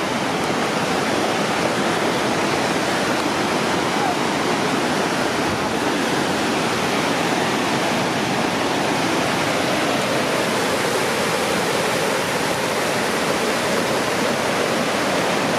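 Mystic Falls rushing steadily, a waterfall of about a 70-foot drop that comes down as a cascade over multiple levels.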